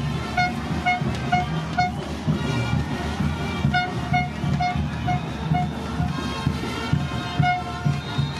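Brass band playing Chinelo dance music: short, repeated brass notes at about two a second in a bouncing rhythm over a steady low bass beat.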